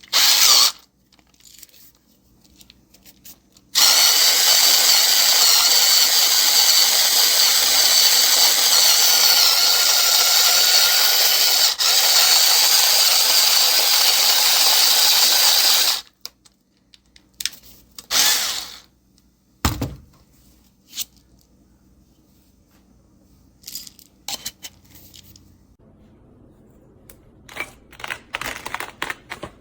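KitchenAid KCG8433 burr coffee grinder's motor running steadily for about twelve seconds, then cutting off suddenly. A few short handling noises and a low thump follow.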